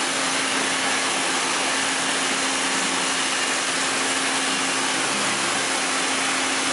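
Mitsui Seiki HJ63A CNC horizontal machining center running under power while its rotary pallet table turns: a steady hiss with a constant low hum underneath.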